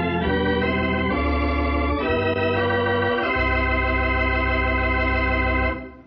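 Organ music bridge: sustained chords that change every second or so, ending on a long held chord that cuts off near the end. It closes the dramatic scene before the narrator's epilogue.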